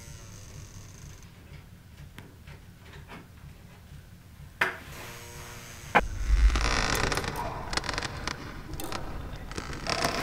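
Low hum with faint clicks, then a sharp knock; about six seconds in, a heavy thump followed by continued clattering and rustling with many small knocks.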